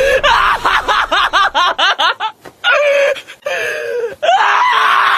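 A young man screaming and wailing in fright as an injection needle is brought at him: a quick run of short rising-and-falling yelps, a few more cries, then a long held high note from about four seconds in.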